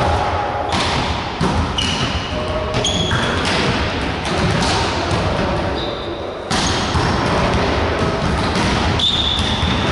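Indoor volleyball rally in a large echoing gym: a volleyball being struck and thudding, players calling out, and a few short high squeaks.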